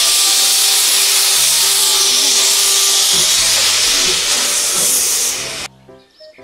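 A steam locomotive blowing off steam, with clouds venting at the cylinders: a loud, steady hiss that cuts off abruptly about five and a half seconds in. Background music plays underneath.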